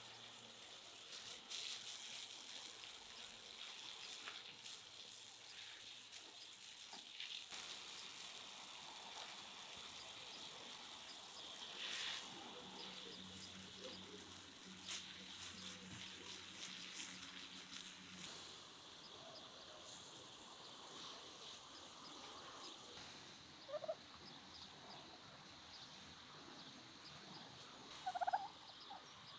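Quiet outdoor farmyard ambience with two short, louder calls from domestic fowl near the end.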